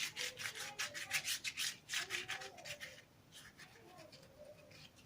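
A pastry brush spreading oil over a thin yufka pastry sheet in quick back-and-forth scratchy strokes, about six a second. The strokes become fainter and sparser after about three seconds.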